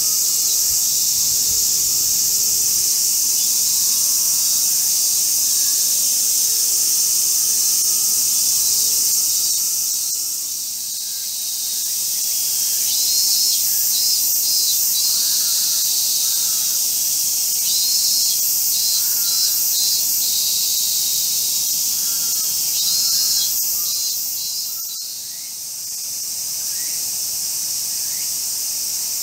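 Loud, steady high-pitched buzzing chorus of cicadas, with a few short bird chirps in the second half.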